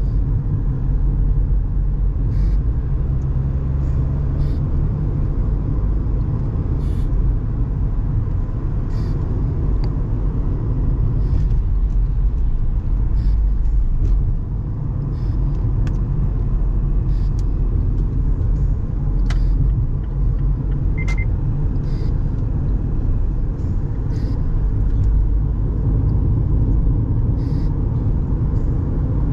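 Car driving along a road, heard from inside the cabin: a steady low rumble of engine and tyre noise, with a few faint clicks.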